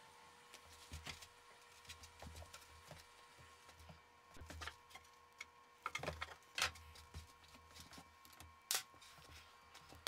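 Scattered light knocks and clicks of plywood and a steel framing square being handled on a wooden drawer box, over a faint steady background hum.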